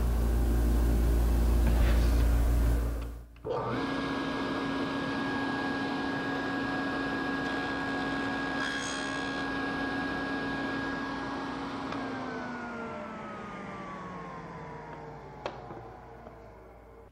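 Table saw with a dado stack mounted, running at speed with a steady whine. About twelve seconds in the motor is switched off and the whine falls steadily in pitch as the blade coasts down. A louder low hum fills the first three seconds, before a brief break.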